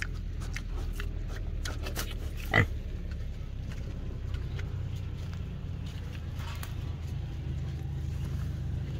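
Pigs grunting and snuffling, with one short, louder grunt about two and a half seconds in, over a steady low hum.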